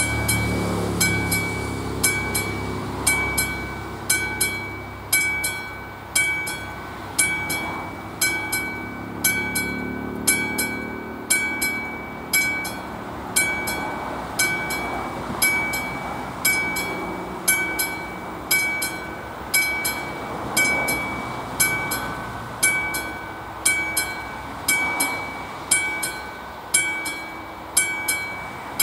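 Level-crossing warning bell, a classic mechanical bell on the AŽD 71 signal, striking over and over in a steady rhythm of about once a second, each stroke ringing on. The bell sounds because the crossing is warning of an approaching train.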